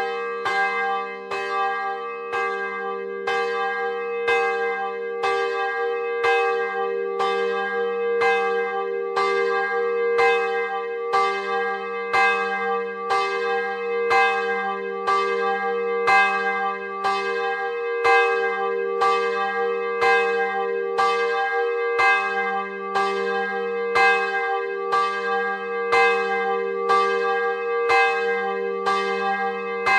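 The largest of three bronze church bells, cast by Rudolf Perner of Passau in 2009 (102 cm, 615 kg, tuned to g'), ringing alone, its clapper striking about once a second. The first strike comes right at the start, and a deep hum note swells and fades under the ringing.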